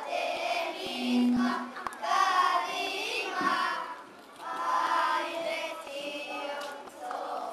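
A group of children singing together, the song coming in phrases with short breaks between them.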